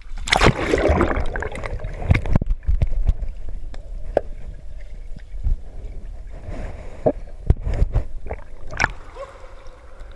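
Swimming underwater, heard from a camera under water: muffled rushing water and bubbles, loudest in the first two seconds, then a low rumbling bed with scattered knocks and thumps.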